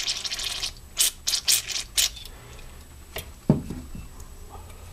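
Aerosol carburetor cleaner sprayed through an extension straw into the carburetor's passages: a hiss of under a second, then a quick series of about five short spray bursts. A couple of knocks follow a little past the middle as the part is handled.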